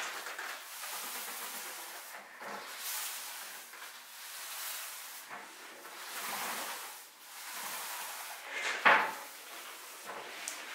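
Hand rubbing strokes on wooden furniture, a swish about every second or so, with a sharper, louder scrape near the end.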